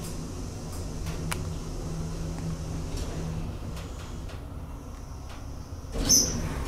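Steady low rumble of a railway station platform, with a hum that fades out about halfway, then a short sharp noise with a high-pitched edge about six seconds in.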